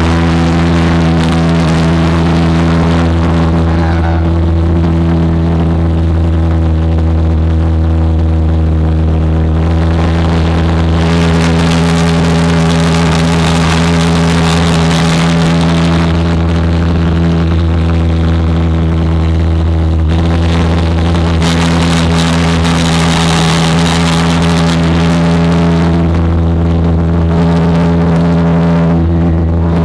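Pulse jet engine running steadily: a loud, deep buzzing drone that holds one pitch, with a hiss over it that grows stronger for stretches in the middle and later on.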